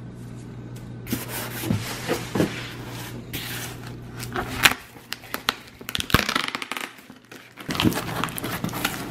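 A taped cardboard shipping box being pried open by hand: the packing tape pulling loose and the cardboard flaps scraping and crackling, with a couple of sharp snaps partway through.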